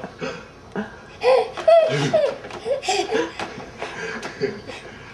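Baby laughing in a string of short bursts, the pitch rising and falling, loudest in the first half.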